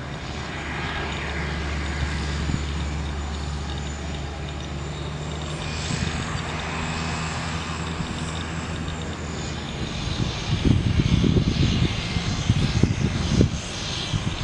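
Cessna 208B Grand Caravan's single turboprop engine and propeller running at low power while the plane taxis, a steady low drone. From about ten seconds in, gusts of wind buffet the microphone and become the loudest sound.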